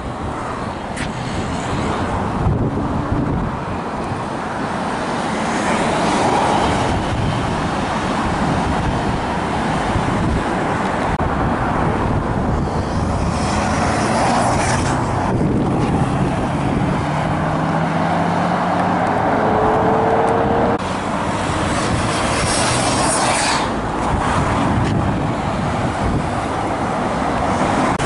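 Road traffic: cars driving past, with louder swells as vehicles pass close, and one engine rising slowly in pitch as it accelerates about two-thirds of the way through.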